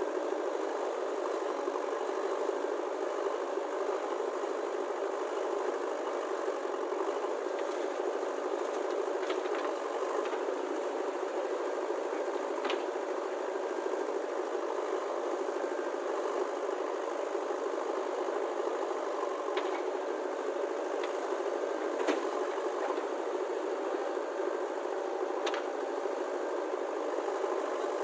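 A small motor running steadily, with a few sharp clicks.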